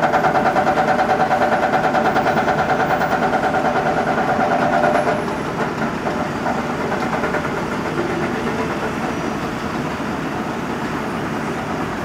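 Cat M315C wheeled excavator's diesel engine working under load, with a steady whine over a pulsing beat. The whine cuts out about five seconds in, and the engine runs on a little quieter.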